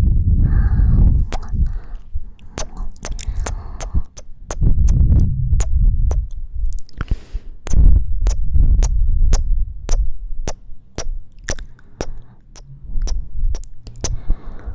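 Close-miked ASMR kissing sounds: a run of sharp, wet kiss smacks and sucking pops right at the microphone. Between them come warm breaths that push deep rumbling puffs into the mic, with one longer breathy exhale about seven seconds in.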